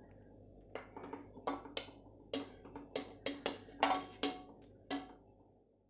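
About a dozen sharp, irregular clinks and knocks of a utensil against an enamel plate and the steel pot as chicken pieces and masala are scraped off the plate onto a layer of rice. They begin about a second in and stop shortly before the end.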